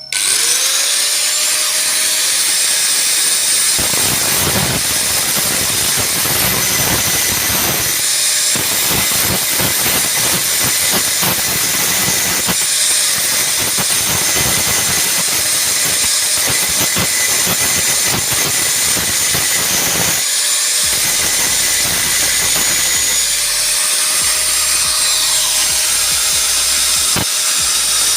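Angle grinder whining up to speed, then grinding through the steel rivets that hold the washing-machine dryer motor's housing together, with short breaks near 8 and 20 seconds in and a free-spinning whine again near the end.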